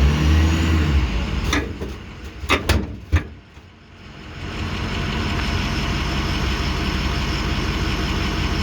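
Demco Recon fifth-wheel hitch on the gooseball mount of a Ford F350 giving several sharp pops as the truck moves, the loudest about three seconds in. The owner takes these for a sign that something in the hitch is broken. The truck's 6.0 diesel runs steadily underneath.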